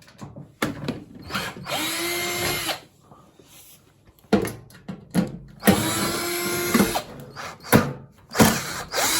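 Cordless power screwdriver backing out three crosshead screws from a washing machine's front panel. There are three runs of about a second each, the motor whining up to speed and winding down, with clicks and knocks of handling between them.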